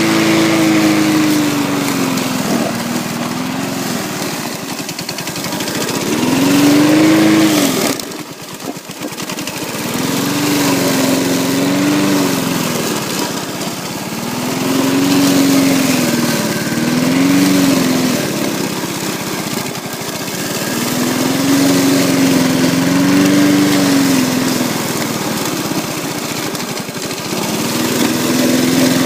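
Petrol lawn mower engine running under load in heavy grass, its speed sagging and recovering every couple of seconds. The sound drops away briefly about eight seconds in.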